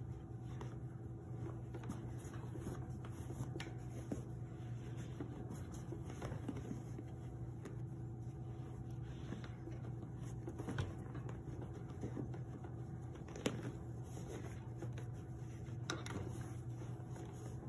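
Elastic emergency bandage being unrolled and wrapped around a training manikin's leg: soft rustling and handling sounds with a few light knocks, over a steady low hum.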